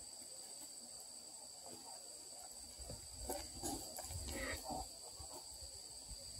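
Faint, steady high-pitched chirring of insects. About three seconds in comes a short stretch of soft scuffling and low thumps from two Redbone coonhound puppies tussling over a plush toy.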